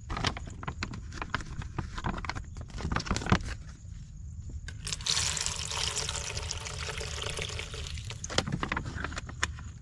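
Water being poured for about three seconds, starting about halfway through and stopping abruptly, after a run of light clicks and knocks from things being handled.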